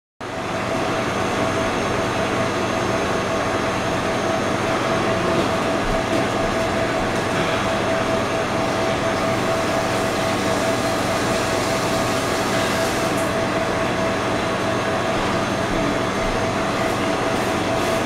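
Steady mechanical hum with a constant whine running through it: the bottom-mounted compressor and condenser fan of a two-door glass-front commercial reach-in refrigerator running, a sign that the fridge is working again after repair.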